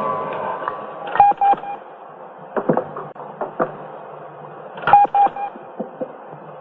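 Short electronic beeps mixed with sharp clicks, in two clusters about a second in and near five seconds, with a few knocks in between over a low steady hum.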